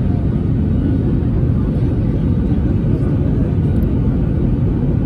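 Steady low rumble in the cabin of an Airbus A321neo rolling along the ground: engine noise and wheel rumble heard from a window seat over the wing.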